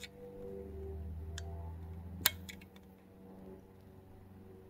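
Faint metal clicks of a screwdriver tip against a chainsaw piston ring through the cylinder's exhaust port, with one sharp click about two seconds in. A low steady hum runs underneath.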